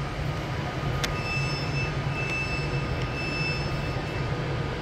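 Class 390 Pendolino electric train at the platform with a steady low hum. A high-pitched tone comes and goes in several short stretches, with a single sharp click about a second in.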